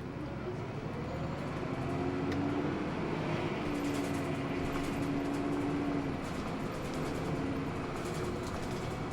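Hino Blue Ribbon II city bus under way, heard from inside the cabin: the drivetrain whine rises in pitch as it accelerates over the first couple of seconds, then holds a steady pitch over the running noise before fading near the end.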